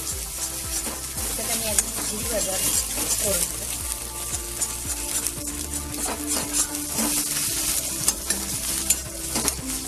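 An egg sizzling in hot oil in a metal kadai while a spatula scrambles it, with frequent sharp scrapes and taps of the spatula against the pan.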